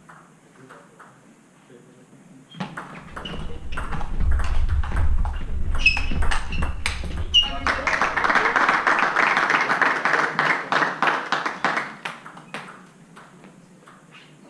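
Table tennis ball ticking off bats and table in a rally. About three seconds in come louder knocks and voices, then a burst of clapping for about four seconds, and near the end the ball ticks again as play restarts.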